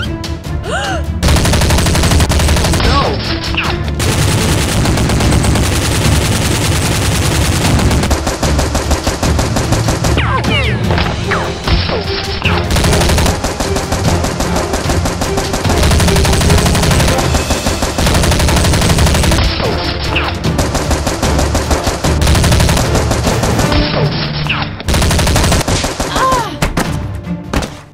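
Movie-style automatic gunfire sound effects: long bursts of rapid shots, with short breaks every few seconds.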